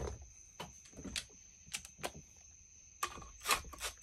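Hand tools and small metal chainsaw parts being handled at a workbench: scattered sharp clicks and clinks, busier and louder near the end.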